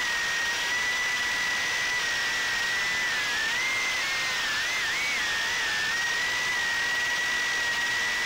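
Brushless motors of a 2-inch FPV micro quadcopter (1105 7500kv motors on a 2S battery) whining at a steady high pitch, picked up by the drone's own onboard camera. The pitch wavers for a couple of seconds in the middle.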